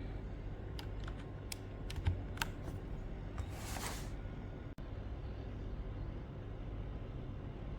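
Scattered keystrokes on a mechanical keyboard, about half a dozen clicks in the first two and a half seconds, then a short swishing rustle just after the middle, over a steady low hum.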